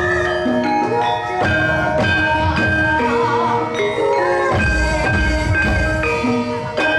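Live Javanese gamelan music: bronze metallophones ringing out a steady stream of held melody notes over drum strokes, with the drumming heavier for a moment past the middle.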